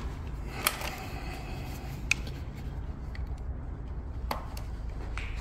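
A few sharp, separate footsteps on a hard stairway, four in all and irregularly spaced, over a low steady rumble.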